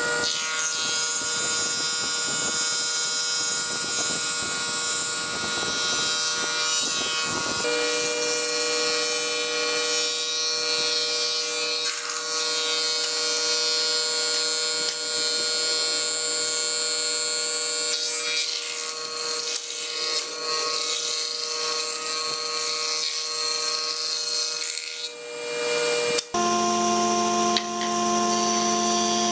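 Electric woodworking machines running and cutting pallet wood, a steady motor whine over the noise of the cut; through most of it a thickness planer is shaving boards. The machine tone changes abruptly twice, about a third of the way in and near the end.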